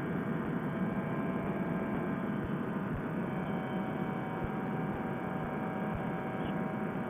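Steady drone of a Fresh Breeze Monster paramotor engine running at constant power in cruise flight, its pitch unchanging, heard muffled through a headset microphone.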